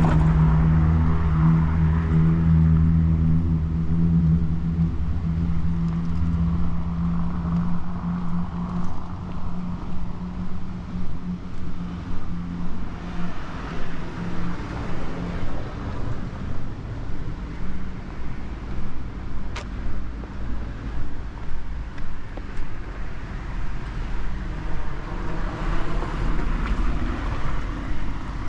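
Street traffic: a motor vehicle's engine runs close by and fades away over the first several seconds, then cars pass by on the road. A steady walking-pace beat of footsteps runs under the traffic.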